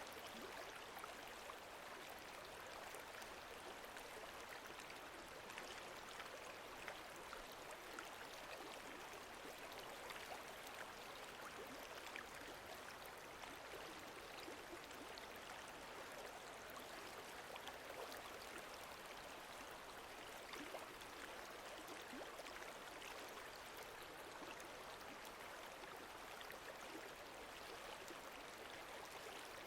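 Lake water moving at the shore: a faint, steady wash with many small scattered ticks and drips.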